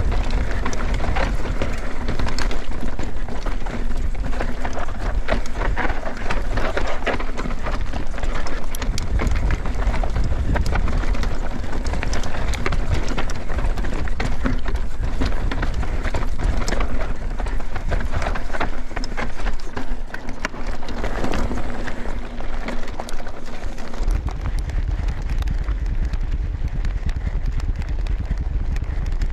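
Mountain bike rolling fast over rocky, dusty trail and loose gravel: a steady low rumble of the tyres with constant clatter and ticking of stones and the bike's parts. The rumble drops away a few seconds before the end and then returns.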